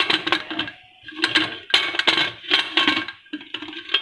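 Aluminium pressure cooker lid clinking and scraping against the pot as it is handled, in several short bursts of metallic clatter about half a second apart.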